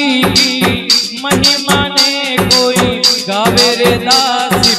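Live Rajasthani devotional bhajan music: a bending melody line over a steady, driving percussion beat.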